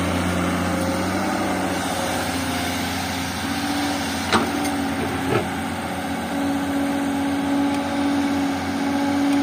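Tata Hitachi EX110 crawler excavator's diesel engine running steadily while the machine works, its note growing stronger about six seconds in as the bucket digs. Two sharp knocks about a second apart come near the middle.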